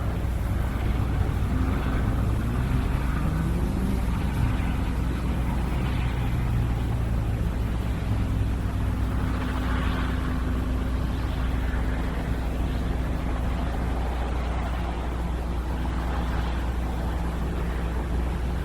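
Helicopter running with a steady deep rumble. An engine tone rises in pitch early on and then holds steady until it fades about fourteen seconds in.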